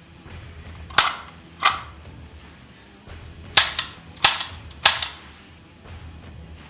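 CO2-powered 4.5 mm (.177) AR15-style air rifle fired five times in single sharp pops: two about a second apart near the start, then three quicker shots after a pause.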